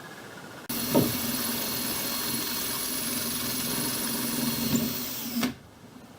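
Electric drill with a 7/64-inch bit running steadily as it bores through a brass rudder-cable fitting, starting about a second in and stopping near the end.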